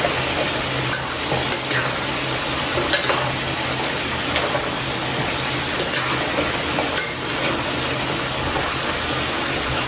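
Chicken curry with potatoes and carrots sizzling in a pan while it is stirred, the spoon clicking and scraping against the pan every second or so. A steady low hum runs underneath.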